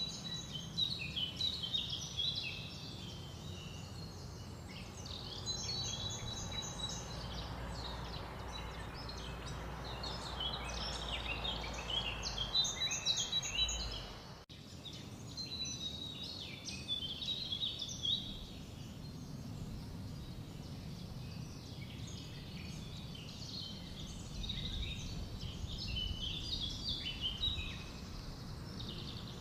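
Small songbirds singing and chirping, many short overlapping calls and trills, over a low steady background rumble. A brief dropout about halfway through.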